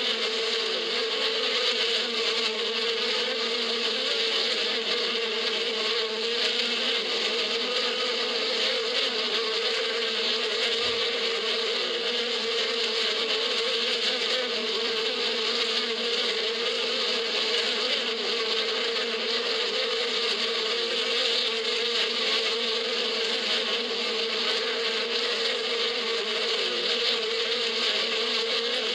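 A swarm of honeybees flying around their hive, a continuous dense buzz with a slightly wavering pitch.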